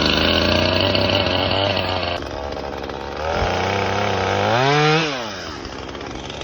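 Husqvarna 450 Rancher two-stroke chainsaw on its first test run after a rim-sprocket conversion. It runs fast just after starting and drops to idle about two seconds in. Around four seconds in it is revved up once, then falls back to idle.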